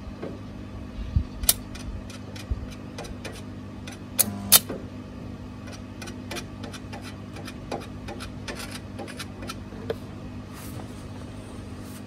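Steady machine hum from the running Parkside stick welder, with scattered metallic clicks and taps as the electrode holder and rod are handled. The sharpest clicks come about a second and a half in and twice around four and a half seconds.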